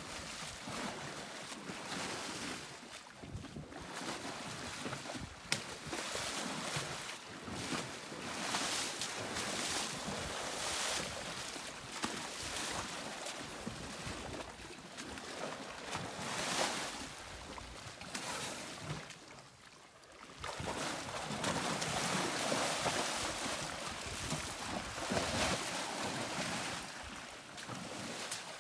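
African elephant splashing and wallowing in a shallow muddy waterhole: uneven sloshing and swishing of water that swells and fades, with a brief lull about two-thirds through.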